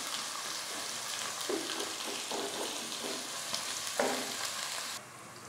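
Sliced onions sizzling in oil in a stainless steel kadai on a low flame while a wooden spatula stirs them, with light scraping against the pan and a single knock about four seconds in. The sizzling drops away abruptly near the end.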